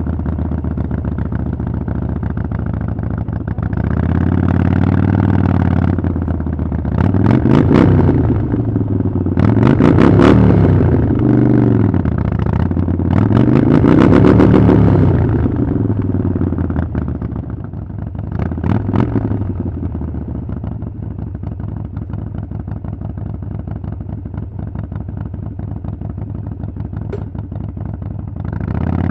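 Harley-Davidson Iron 883's air-cooled V-twin through a Vance & Hines exhaust, the revs rising and falling away about five times, then running steadily at lower revs, with a brief rise right at the end.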